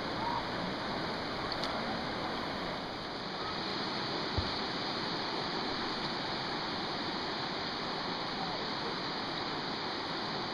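River water rushing steadily over shallow rapids and rocks, with one brief low bump a little over four seconds in.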